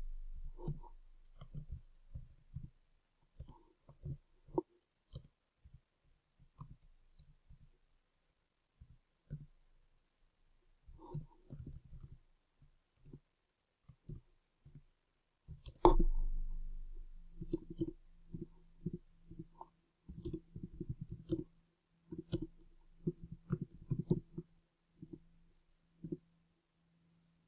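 Computer keyboard typing: irregular keystrokes clicking, faster in flurries in the second half, with one louder dull thump about 16 seconds in.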